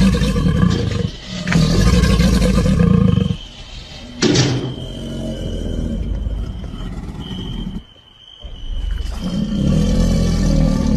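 Alligator growling in three long, deep rumbles, with one sharp knock about four seconds in.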